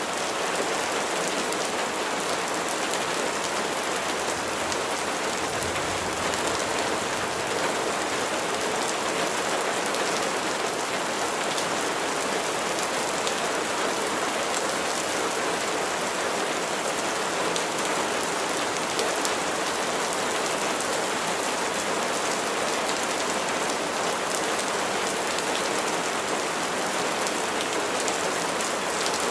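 Steady rain falling and pattering on a surface, an even hiss dotted with fine drop ticks.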